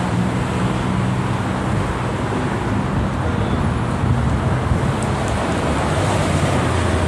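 Road traffic noise from passing cars, with a steady low engine drone.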